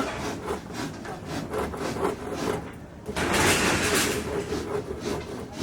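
Building-site work noise: a run of short knocks and scrapes, with a louder rasping stretch about three seconds in.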